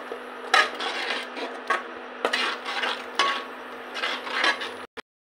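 A spoon stirring a thick masala in a metal kadai, scraping and knocking against the pan in irregular strokes, one every half second to second. The yogurt has just gone into the masala and is being stirred hard so it doesn't split. The sound cuts off suddenly near the end.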